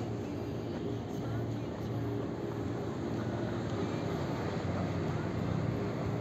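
Crowded station platform ambience: a steady low hum with murmured crowd chatter.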